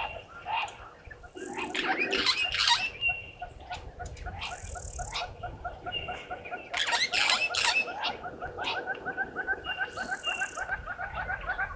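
African wild dogs twittering: quick runs of high, bird-like chirps and squeaks, busiest about two seconds in and again about seven seconds in.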